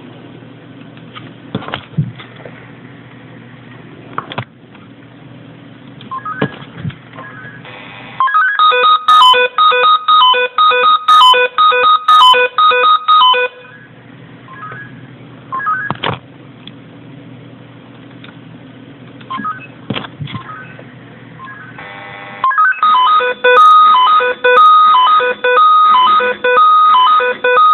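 Swissphone Quattro XLSi fire-brigade pager sounding its alarm on a test call: a loud, rapid beeping melody of high tones. It comes in two bursts of about five seconds, the first starting about eight seconds in and the second about twenty-two seconds in, each opening with a short buzz.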